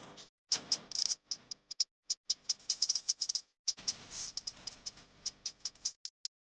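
Coloured pencil scratching on paper in quick shading strokes: two dense runs of rapid strokes, then a few separate light ticks near the end.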